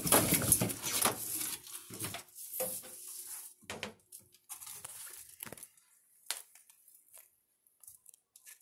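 A black roughneck monitor striking at a thawed mouse held out on feeding tongs: a burst of rustling and scraping at the start as it grabs the prey among the branches and substrate, then scattered knocks and rustles as it handles the mouse, dying away about six seconds in.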